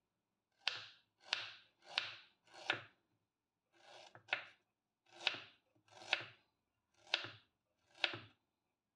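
Kitchen knife slicing fresh ginger on a wooden cutting board: about nine separate cuts, each a sharp knock of the blade through the root onto the board, roughly one every three-quarters of a second, with a short pause about three seconds in.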